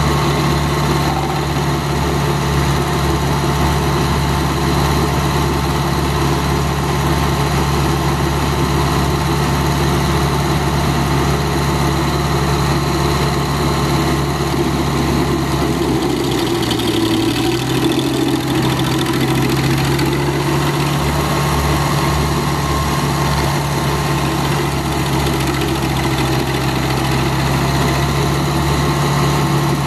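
Vermeer 630 stump grinder running steadily with its cutter wheel down in a stump. The engine's pitch sags briefly about halfway through, then recovers.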